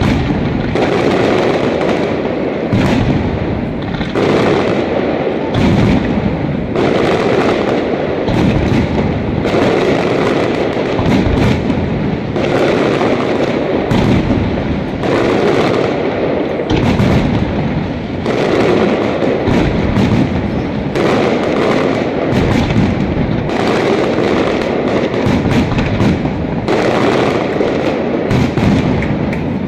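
Professional aerial fireworks display in a dense, continuous barrage: shell bursts boom and crackle several times a second with no pause. It begins abruptly.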